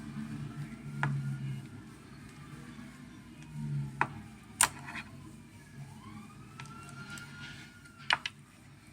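Sharp clicks and snaps as a Samsung Galaxy S6's screen assembly is pried away from its frame by hand, about five spread over several seconds. Under them, a faint tone rises and falls.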